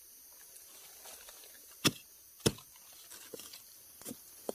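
A digging spade chopping into the ground: two sharp strikes about half a second apart near the middle, then a few lighter knocks.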